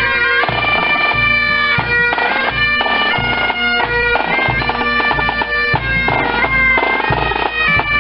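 Bagpipes playing a stepping melody over their steady drones.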